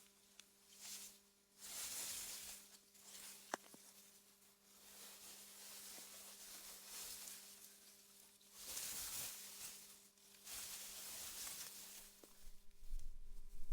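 Wind rustling through meadow grass in soft gusts that swell and fade, with a faint steady hum underneath and a single sharp click about three and a half seconds in. Near the end a louder low rumble comes in.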